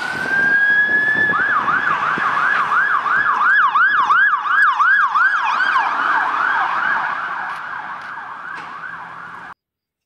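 Police car siren: a rising wail that holds its pitch, then switches to a fast yelp of about three sweeps a second over traffic noise. It fades away and then cuts off abruptly near the end.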